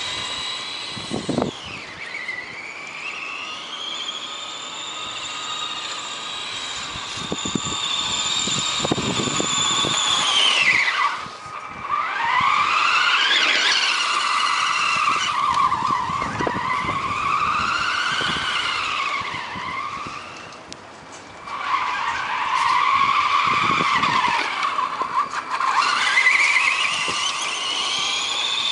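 Electric motor and gearing of a radio-controlled car whining, the pitch rising and falling over and over as the car speeds up and slows down. The whine drops away sharply twice, once about a third of the way in and again about two thirds in, when the throttle is let off.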